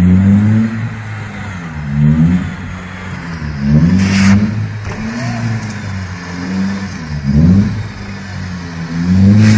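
Small Opel hatchback's engine revving up and falling back again and again, about five times, as the car is driven back and forth to ram a wall. About four seconds in there is a short, sharp burst of noise.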